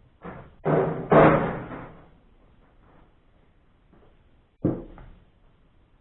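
Sheet-metal outer cover of a microwave oven banging and rattling as it is worked loose and lifted off: three loud knocks in the first second and a half, then one more sharp knock near the end.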